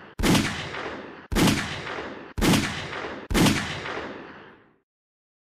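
Four 9mm pistol shots from a 3-inch-barrel pocket pistol firing 115-grain +P rounds, about a second apart. Each is a sharp report with a trailing echo that fades over about a second.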